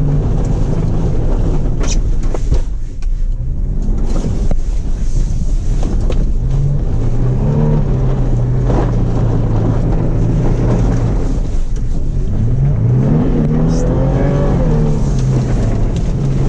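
Toyota off-road truck's engine running under load over rough ground, rising in pitch as it revs up about halfway through and again, longer, near the end, with a few knocks from the bumps.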